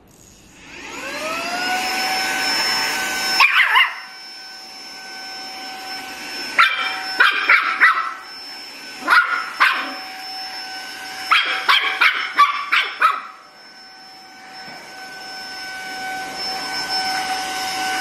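Saker 3-in-1 cordless mini vacuum cleaner switched on, its brushless motor spinning up within about a second to a steady high whine as the floor nozzle works the floor. A puppy yaps in several short clusters of high barks through the middle.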